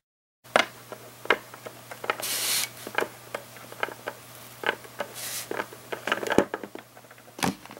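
Small plastic toy figurines handled and tapped on a wooden tabletop: a scatter of light clicks and knocks, with two brief rustles of lace fabric being moved over them.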